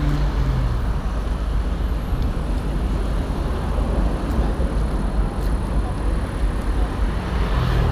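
Steady low rumble of a heavy truck engine running, with an even hiss of road and wind noise over it.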